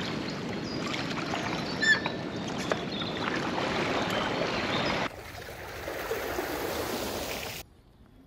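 Rushing water of a flooded stream, a steady noisy rush that cuts to a quieter rush about five seconds in and stops abruptly near the end.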